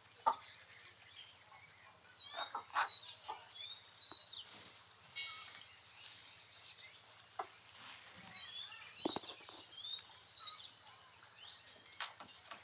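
Kadaknath chickens in a poultry pen: scattered short, high chirps and calls, with a few sharp knocks, over a steady high-pitched hiss.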